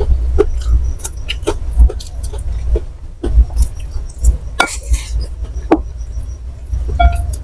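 Close-miked eating of fried snacks: irregular wet chewing clicks and low thuds, with clinks of cutlery against a plate.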